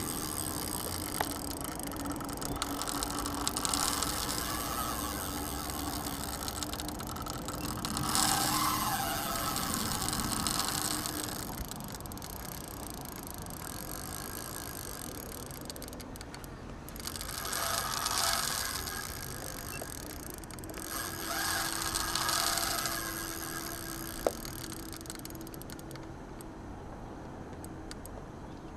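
Spinning reel working in bursts of a second or two while an angler plays a big hooked fish, most likely a wels catfish, with the rod bent hard. A steady low hum runs underneath for much of the time.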